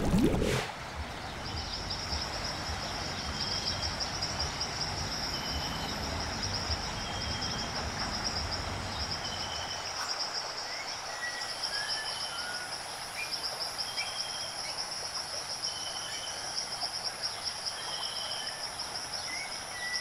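Wetland ambience: insects trilling steadily at a high pitch, with short high notes repeating about once a second. A few faint bird chirps come in during the second half.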